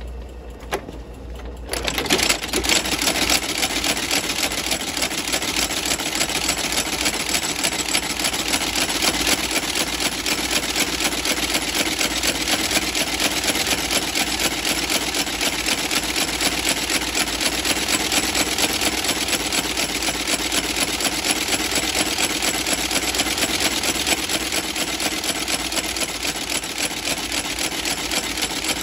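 Outsole stitching machine starting up about two seconds in, then running steadily in a fast, even rhythm of stitches as it sews a leather sole to the shoe's welt.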